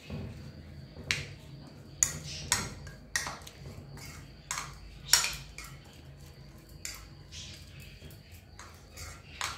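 Metal spoon stirring chopped tomato, onion and herbs in a plastic bowl, knocking and clinking against the bowl about eight times at irregular moments.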